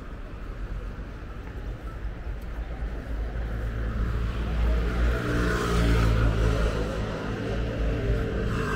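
A motor vehicle's engine approaches and passes close by. It grows louder from about three seconds in, with a rushing hiss at its loudest point around six seconds.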